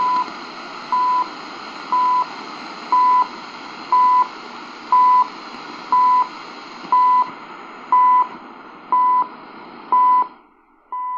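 Shortwave time signal from CHU Canada through the CCRadio SW's speaker: a short beep near 1 kHz once a second, over steady static hiss. About ten seconds in the hiss drops away as the radio is tuned from 3325 to 3330 kHz, and the second beeps go on.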